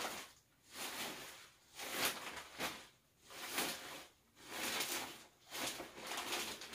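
Clear plastic pillow bag crinkling and rustling in repeated bursts, roughly one a second, as the costumes packed inside it are pressed and handled.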